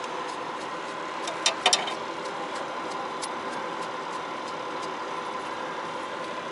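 A few sharp metallic clicks of a wrench working at the battery connection, about a second and a half in, over a steady hum like an idling engine.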